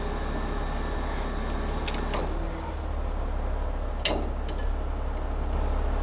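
Heavy rotator tow truck's diesel engine running steadily at a low rumble, with a few sharp clicks or knocks, the loudest about four seconds in.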